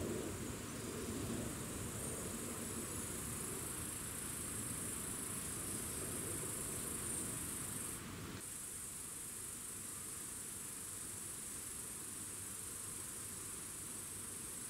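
Insects chirring in a steady, high-pitched drone, with a brief break about eight seconds in.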